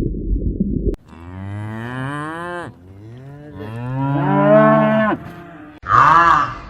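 A cow mooing twice, two long low calls, after a low rumbling sound that cuts off abruptly about a second in. Near the end a short, loud honking call from a different animal begins.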